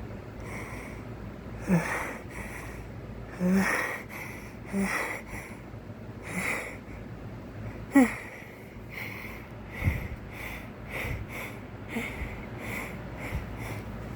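A man sniffing and taking short, hitching breaths through the nose, over and over, a few of them with a brief voiced catch. This is the build-up to a sneeze brought on by tickling the inside of the nose with a cotton swab.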